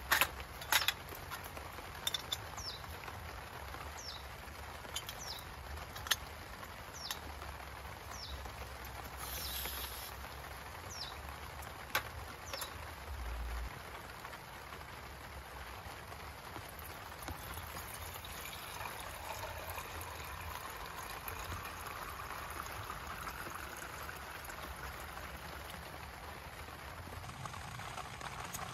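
Steady rain falling, with sharp drips and taps scattered through the first half. Short high descending chirps repeat every second or two over the first dozen seconds.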